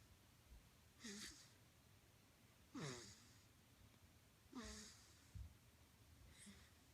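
Sleeping baby snoring softly: four short breathy snores about every two seconds, each carrying a little falling voiced tone, the last one weaker.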